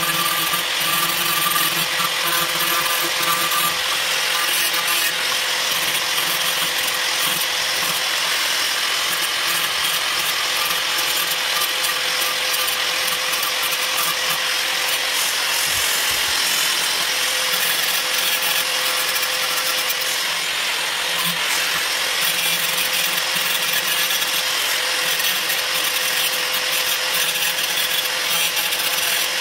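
Electric angle grinder running steadily, its disc grinding down the metal notched edge of a tile trowel.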